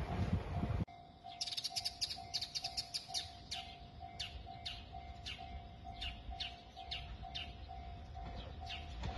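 Small birds chirping in a string of quick down-sweeping calls, fast at first and then spaced out. Under them a level-crossing alarm bell rings steadily at about two strokes a second. In the first second, a passing train's running noise cuts off suddenly.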